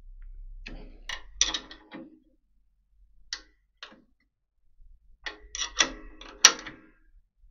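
Metal clicks and clinks of a spanner fitting onto and turning the bolts of a bandsaw table bracket as its fastenings are tightened. The clicks come in two clusters, with a few single ones between, and the sharpest click is near the end.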